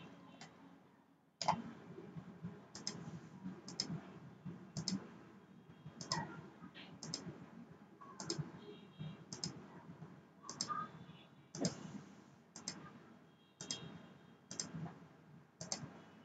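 Computer mouse button clicking, single sharp clicks about once a second, some fifteen in all, over faint low room noise.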